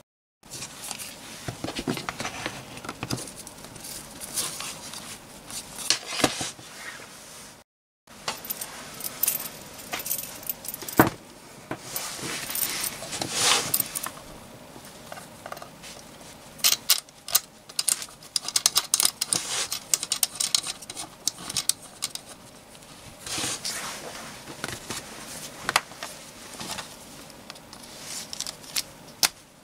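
Hands handling the parts of a KSGER T12 soldering station on a wooden bench: irregular clicks, scrapes and light metallic rattles as the handle's screw-on cable connector is fitted to the front socket and a T12 tip is pushed into the handle. The sound drops out completely twice, just after the start and about eight seconds in.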